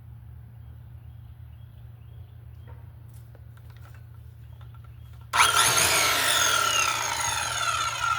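A power saw starts cutting abruptly about five seconds in, loud and harsh, its pitch falling steadily as the blade bites in under load. Before that there is only a faint low hum.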